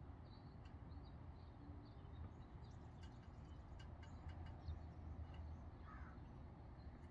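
Small wood fire burning in a homemade tin-can gasifier stove, faint scattered crackles over a low steady rumble.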